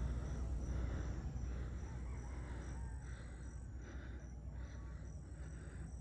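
A hiker's heavy breathing: short, hard breaths in an even rhythm of about two a second, over a steady low rumble.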